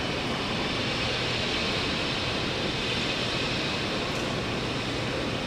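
Steady rushing hum of an electric regional train at the station platform, even in level throughout.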